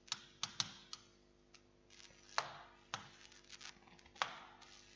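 Faint, scattered taps and clicks of a stylus on a digital writing tablet, about half a dozen over a few seconds, over a low steady hum.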